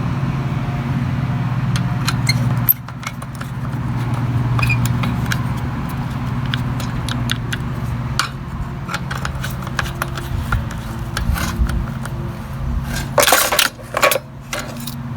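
Hand tools clicking and clinking against metal as the mower's recoil starter is bolted down, over a steady low hum. A few louder metallic clanks come near the end.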